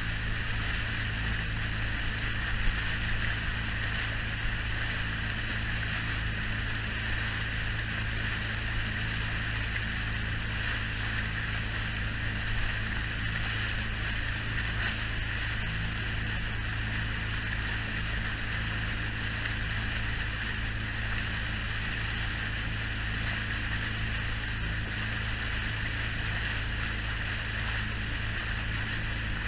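Tender boat running at steady speed: its engine drones evenly under a constant rush and splash of water along the hull.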